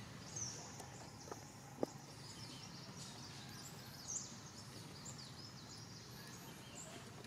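Steady faint outdoor background with a few short, high bird chirps, and two small sharp clicks about a second and a half in.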